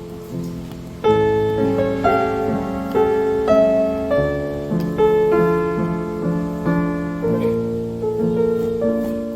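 Background piano music, a gentle melody of struck notes that gets louder about a second in.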